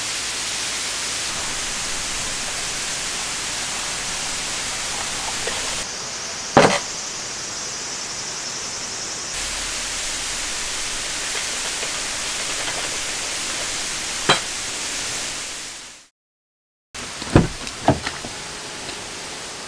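Steady hiss of rain falling on the tent, with a couple of sharp knocks from gear being handled. The sound cuts out for about a second near the end and comes back with a few more knocks.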